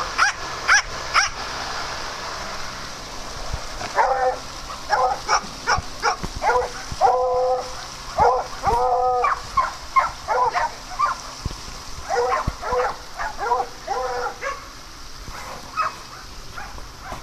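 Dogs barking and yipping in play: a quick run of short yips in the first second, then after a pause an irregular string of barks with a few longer, drawn-out calls in the middle.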